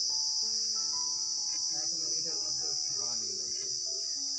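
A steady, high-pitched insect chorus of crickets or cicadas, with a soft background melody of held notes changing pitch every half second or so.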